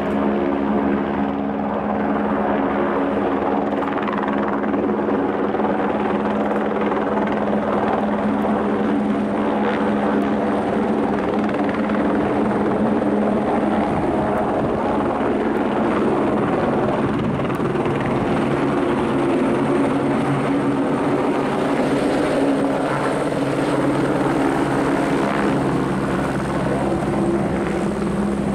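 Airbus H125 (AS350 Écureuil) single-turbine helicopter hovering close by, its main rotor and tail rotor running steadily with an even, pitched rotor beat.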